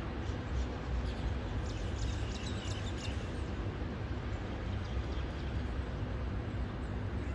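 Birds chirping in quick, short calls for about the first three seconds, over a steady low rumble of road traffic.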